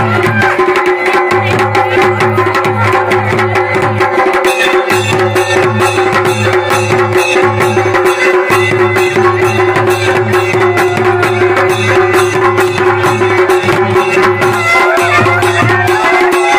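Kumaoni folk band music: a masakbeen (bagpipe) playing a wavering melody over a steady drone, with dhol and damau drums beating a steady rhythm.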